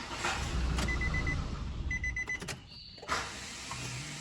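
Nissan Frontier diesel's starter motor spinning for about two seconds with a low whir and then cutting off with a click. The Bendix drive is slipping instead of turning the engine over. Two quick runs of four electronic beeps sound during the cranking.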